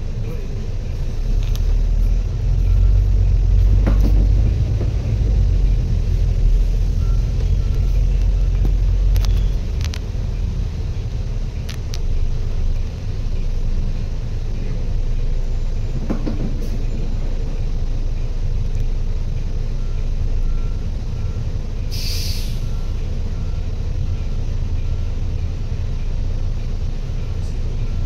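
Steady low rumble of a motor vehicle, heaviest for the first ten seconds or so, with a short hiss about 22 seconds in.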